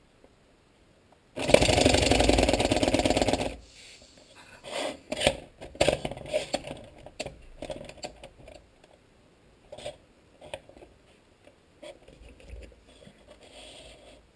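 LEGO pneumatic single-cylinder engine running on compressed air in one loud, very rapid buzzing burst of about two seconds, starting a second and a half in and stopping abruptly. Scattered clicks and knocks of the plastic model being handled follow.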